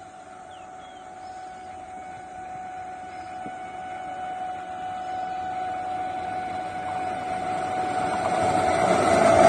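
WAP-7 electric locomotive and its express train approaching at speed, growing steadily louder as it nears, with a steady high tone held throughout.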